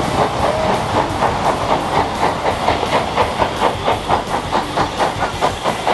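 Steam tank engine dressed as Thomas the Tank Engine working along the line, its exhaust chuffing in a quick, even beat of about four chuffs a second over a steady hiss of steam.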